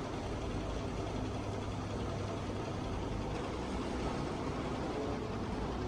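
Heavy truck engine running steadily at low revs, a low, even rumble.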